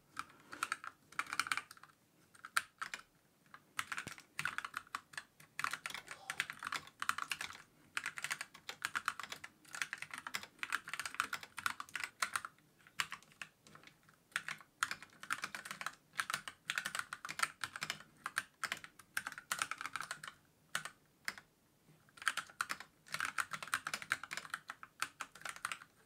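Typing at an ordinary pace on a ZSA Moonlander split mechanical keyboard tented at about 40 degrees on its Platform stand: a fast stream of key clacks, with short gaps between bursts and a few longer pauses. There is no rattle from the stand's spring clip; the stand is essentially silent under normal typing.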